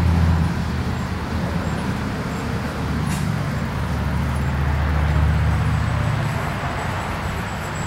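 A vehicle engine idling with a steady low hum that fades a little about half a second in and swells again a few seconds later.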